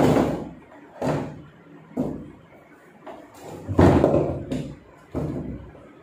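Metal clunks and knocks as a top-load washing machine's steel gearbox mounting plate and brake assembly are handled and seated onto the tub: about five knocks a second or so apart, the loudest nearly four seconds in.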